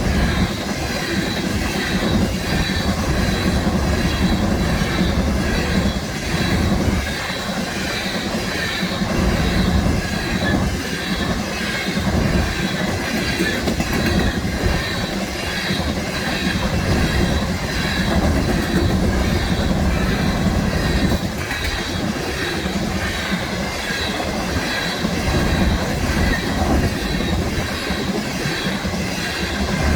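Freight cars of a BNSF coal train rolling past, the wheels clattering over the rails in a steady rhythm, with a faint high steady metallic squeal over the rumble.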